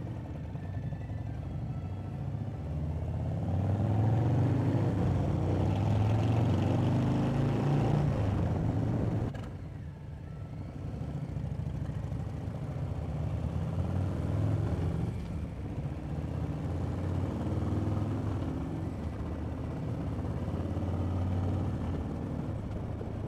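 Harley-Davidson V-twin motorcycle engines pulling away and accelerating, the pitch climbing for several seconds, then dropping off sharply about nine and a half seconds in before running on at cruising speed, with wind noise on the helmet microphone.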